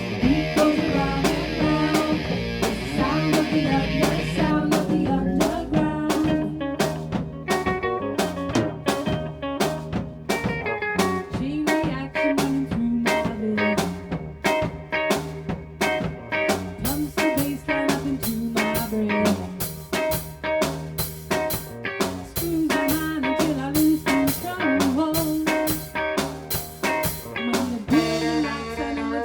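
Band music with a guitar playing a melodic line over bass and a steady drum-kit beat, with no vocal line.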